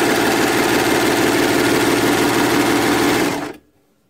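Overlocker running at a steady fast speed, stitching along the edge of a fabric strip, then stopping abruptly about three and a half seconds in.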